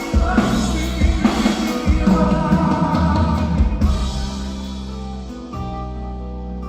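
Instrumental break in a pop ballad: drum kit and bass under sustained chords. The drums drop out about four seconds in, leaving the held chords.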